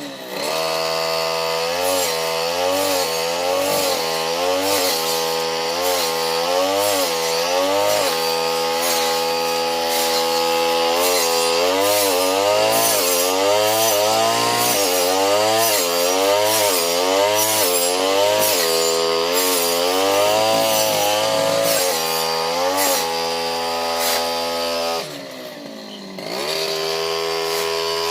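Brush cutter engine running hard while it chops patchouli plants, its pitch dipping and recovering again and again as the blade bogs down in the stems. Near the end it drops back to a lower idle, then revs up again.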